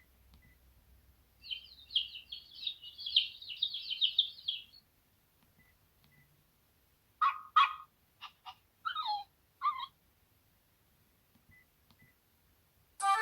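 Birdsong ringtone played through the speaker of a SHARP SH903i flip phone: a fast chirping trill lasting about three seconds, then after a pause about six separate short chirps.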